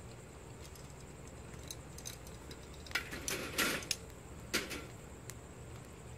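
Metal tongs and a steel rod clinking and clattering as they are handled and set down on the steel rim of a fire pit: a cluster of clanks about three seconds in and another about a second later, with a few faint crackles from the fire.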